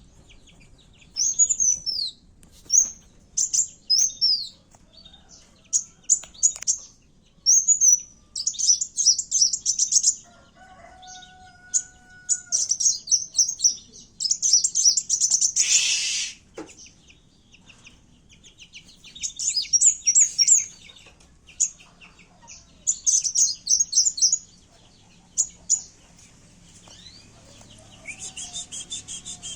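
Kowul (a sunbird) singing a fighting-mode lure song: bursts of very high, rapid chirps and trills broken by short pauses. About 16 seconds in comes a single harsh rasping call.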